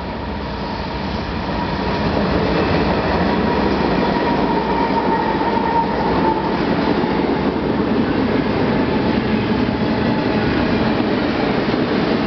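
Freight train passing at speed behind BNSF diesel locomotives, growing louder over the first two seconds as the locomotives close in, then a steady rumble and clatter of double-stack container cars rolling past.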